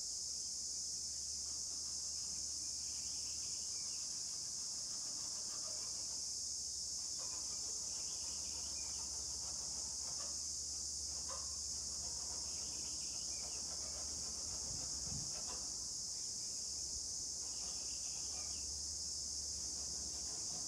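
Steady, high-pitched chirring of an insect chorus, with a faint low hum underneath.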